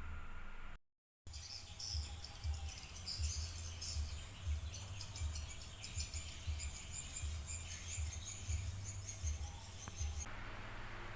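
Outdoor ambience of many small creatures chirping, short irregular high chirps over an uneven low rumble. It begins after a brief dead-silent gap about a second in and stops abruptly near the end.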